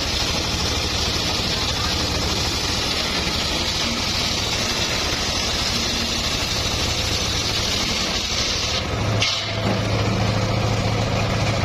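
Engine of a homemade circular sawmill running steadily, with a steady high hiss that cuts off suddenly about nine seconds in, after which the engine's low hum grows louder.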